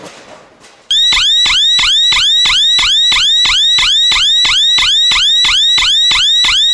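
Siren buzzer of a Qlight SNES explosion-proof warning light sounding its alarm. It starts about a second in as a loud, rapidly repeating rising whoop, about three sweeps a second.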